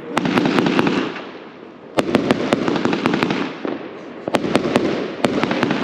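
Fireworks going off: three volleys of sharp cracks, each about a second long, over a low rumble.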